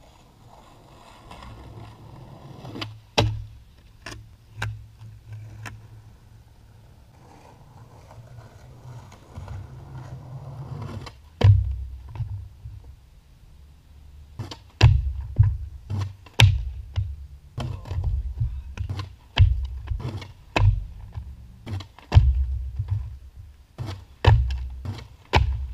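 Skateboard being popped and landed on concrete: repeated sharp clacks of the tail striking and the deck and wheels slapping down, a few spaced out at first and then many in quick succession from about eleven seconds in, over a low rumble.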